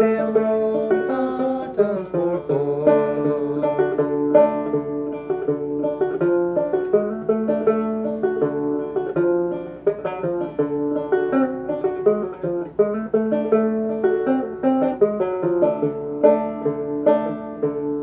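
c.1891 A.C. Fairbanks "Fairbanks and Cole" banjo played clawhammer style with a thumb lead, a steady run of plucked notes carrying the tune.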